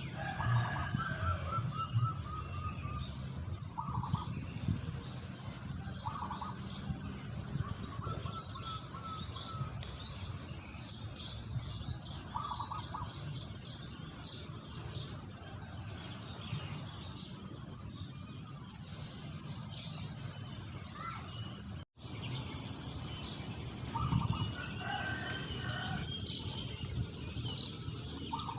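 Several wild birds singing and calling over one another: bursts of short repeated trilled notes and many high chirps over a low steady rumble. The sound cuts out for an instant a little past two-thirds of the way through.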